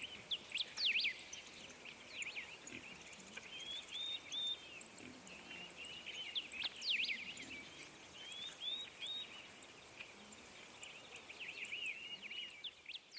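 Small birds chirping and twittering: many short, quick calls in irregular clusters over a faint outdoor background.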